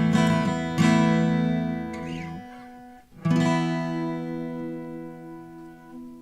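Tagima Dallas Infinity acoustic guitar strummed: two chords in the first second ring and fade, then a last chord is struck about three seconds in and left to ring out, dying away near the end.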